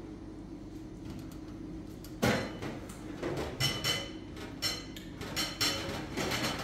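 Dishes and utensils clattering and clinking: a sharp knock about two seconds in, then a run of quick knocks and ringing clinks.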